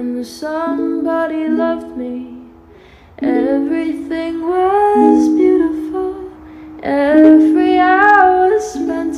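A song: a woman singing a slow melody in three long phrases over plucked strings.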